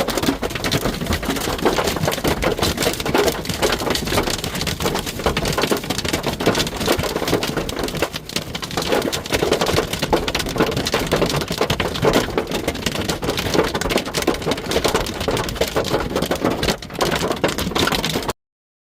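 Hail and heavy rain pounding on a truck's metal body, heard from inside the cab: a loud, dense, continuous clatter of hits. It cuts off abruptly near the end.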